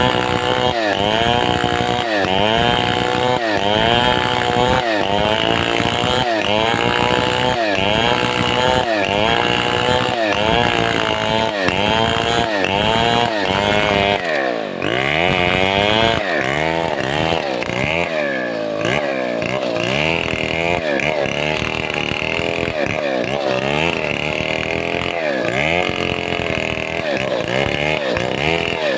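Large Stihl 070-type two-stroke chainsaw under load, ripping a log lengthwise into planks. Its engine pitch dips and recovers in a steady rhythm a little faster than once a second, then wavers more unevenly from about halfway.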